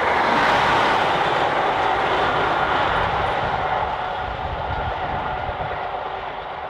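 Class 37-hauled Network Rail infrastructure monitoring train passing and going away, its steady wheel-on-rail rumble fading gradually.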